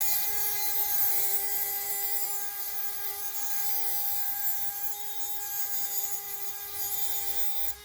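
High-speed rotary cutting tool running at a steady high whine and grinding into metal, cutting notches in the motor mount so the bolt can be fitted past a stripped thread in the block.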